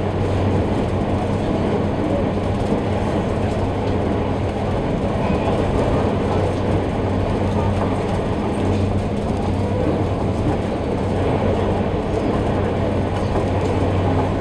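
The passenger ferry New Ferry LXXXIII under way, heard inside its cabin: a steady engine drone with a low hum that holds one pitch, over a constant rush of water and hull noise.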